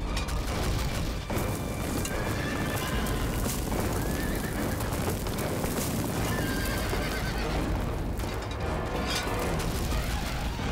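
Horses neighing several times over a clatter of hoofbeats, with film score music underneath.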